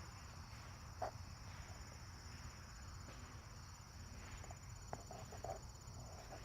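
Crickets chirping in a faint, steady high trill. A few soft knocks come about a second in and again around five seconds in.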